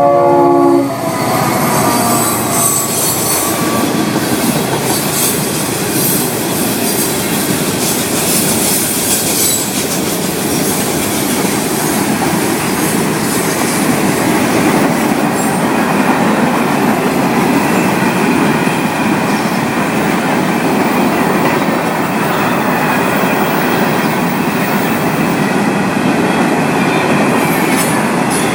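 A Florida East Coast Railway freight train loaded with rock: the locomotive's horn chord cuts off about a second in, then the hopper cars roll past steadily. The wheels clatter on the rails, with high-pitched wheel squeal over roughly the first ten seconds.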